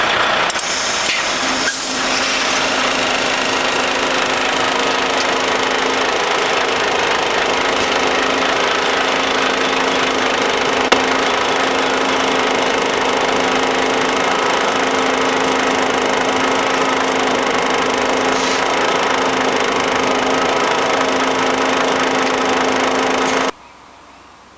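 Volvo FM truck running with its hydraulics lifting the dump body off the chassis: a loud, steady, hissy mechanical noise with a low hum, which stops suddenly near the end.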